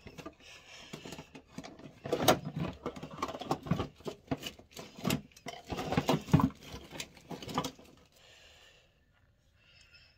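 Plastic makeup items clattering and knocking together as they are rummaged through by hand: a dense run of clicks and knocks that stops about eight seconds in.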